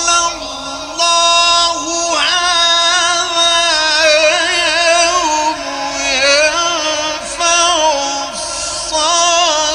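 A male Quran reciter chanting in the ornamented mujawwad style: one high voice drawing out long notes that waver and bend in pitch, with brief breaks about one and two seconds in.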